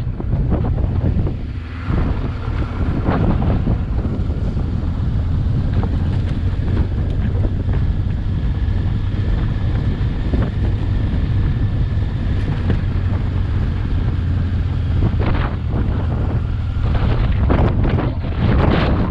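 Wind buffeting the microphone over the steady low running of a Honda Transalp XL600V's V-twin engine on the move, with scattered short knocks as the motorcycle rides over the rough track.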